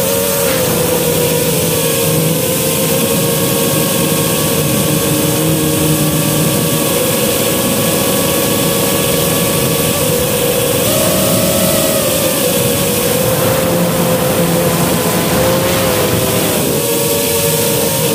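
A 5-inch FPV quadcopter's four brushless motors and propellers whining steadily in flight, heard through the onboard camera's microphone, over a constant rushing hiss of air. The pitch steps up for about a second around eleven seconds in, then settles back, and shifts again near the end.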